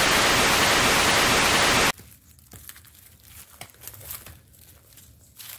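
A loud, even hiss that cuts off suddenly about two seconds in, followed by faint crackling and rustling.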